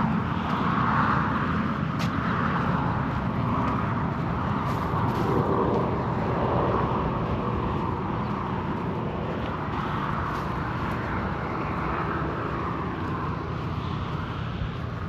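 Steady wind rushing over the microphone, a constant rumbling hiss outdoors.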